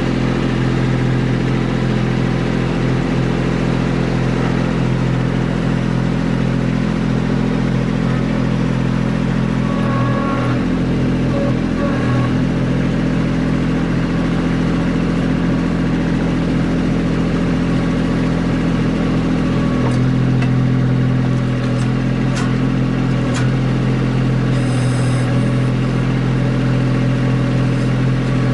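Kubota B2650 compact tractor's three-cylinder diesel engine running steadily while the backhoe digs, its tone wavering briefly a couple of times. A few sharp knocks come in the last third.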